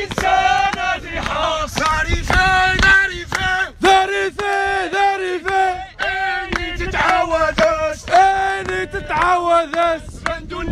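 Protesters chanting: a loud voice carrying sustained, sung phrases over crowd noise, the phrases repeating every second or so.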